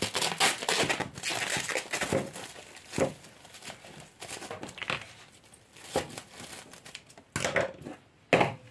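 Thin plastic stretch film crinkling and rustling in irregular crackles as it is handled around a wrapped plant pot, with a few short knocks.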